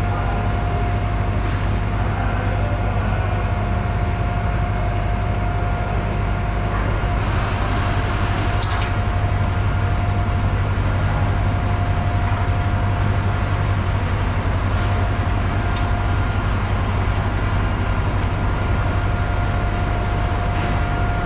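Steady machinery hum in a ship's machinery space: a low drone with a constant whine over it. A single sharp click comes about nine seconds in.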